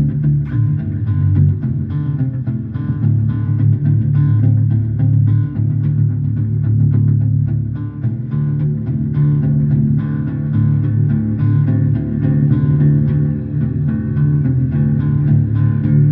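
Electric bass played fingerstyle, sustained low notes moving under a looped guitar backing track.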